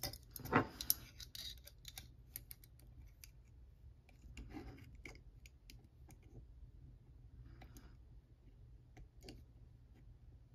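Small metallic clicks and scrapes of a manual vernier caliper's sliding jaw being worked by hand and closed over a steel bolt, sharpest in the first second, then scattered faint clicks.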